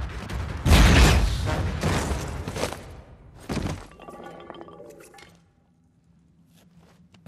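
Film sound effects of a blast followed by loud crashing and shattering. About three and a half seconds in comes a last crash, then scattered clinks of falling debris over a low hum that fades almost to quiet.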